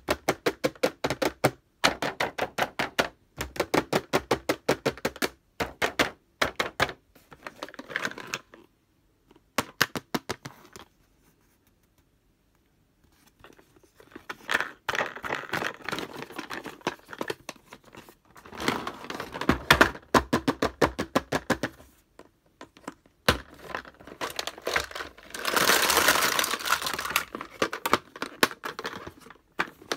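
Fingernails tapping rapidly and evenly on a hard plastic toy case, then looser clicking, rubbing and handling of the plastic, with a longer hissing scrape in the last third.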